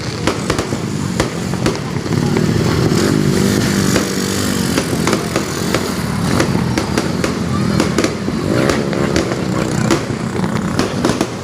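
Firecrackers popping sharply and repeatedly, over a steady engine drone that comes in about two seconds in and dies away near the end.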